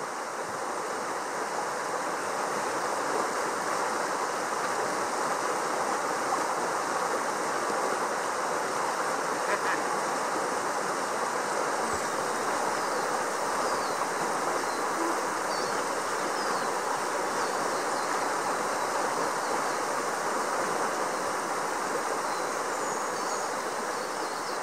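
River rapids rushing steadily over rocks, a constant even roar of white water. Faint high chirps come through now and then.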